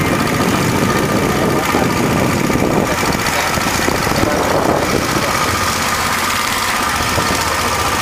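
Small motorboat engine running steadily, with a steady high whine over its drone.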